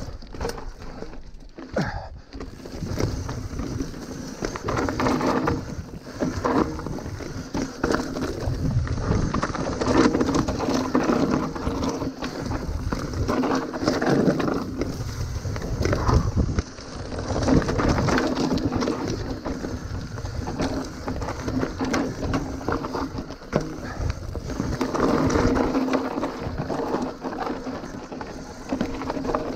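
Mountain bike riding down a rough trail: tyres on dirt and stones, with the bike rattling and knocking over bumps. A steady buzz comes and goes several times.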